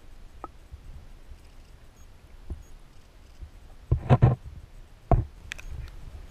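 Sound picked up by a camera held underwater in shallow lake water: a low, steady rumble, with a quick cluster of knocks about four seconds in and one more knock a second later.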